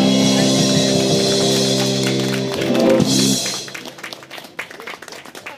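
Live band of electric guitars, bass and drums holding a final sustained chord that stops about three and a half seconds in, followed by scattered claps.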